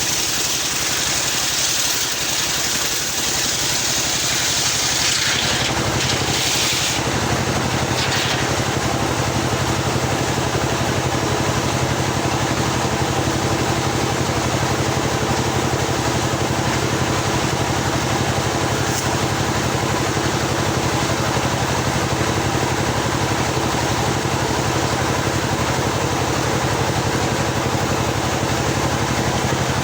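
Engine of a homemade circular-saw sawmill running steadily. For the first six seconds or so a high hiss rides over it. After that the engine's low note grows stronger and holds even.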